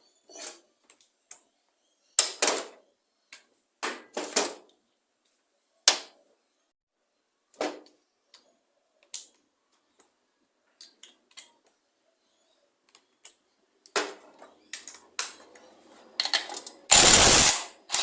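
Scattered metallic clicks and clinks of hand tools working a small lawn mower engine while the spark plug is removed, then a loud rushing burst lasting about a second near the end.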